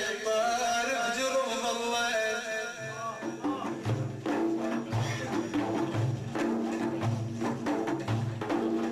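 Religious praise-song music: a wavering melodic line sounds for the first couple of seconds, then about three seconds in a steady rhythm of hand drums comes in, with deep beats roughly once a second and sharper strokes between them.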